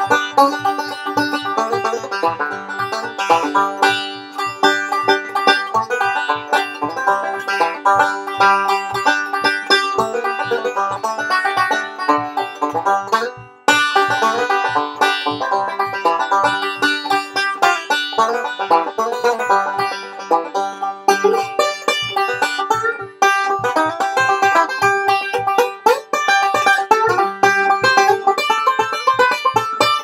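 Solo banjo picked fast, with notes running continuously and a short break about thirteen and a half seconds in.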